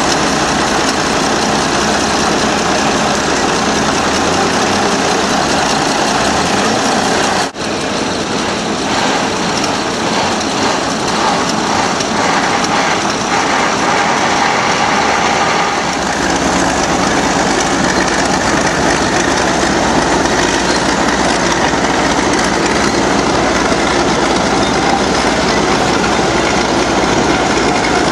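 Loud, steady engine or machinery running, with a brief drop-out about seven and a half seconds in and a heavier low rumble from about halfway through.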